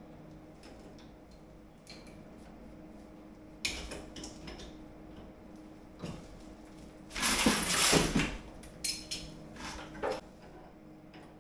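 Scattered knocks and clatter of tools and parts being handled, the loudest a burst of clattering a little past the middle, over a steady low hum.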